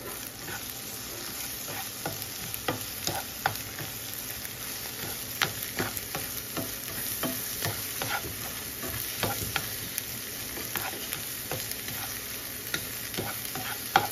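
Scrambled eggs with ham, onion and green chile sizzling in oil in a frying pan, stirred and turned with a spatula that clicks and scrapes irregularly against the pan.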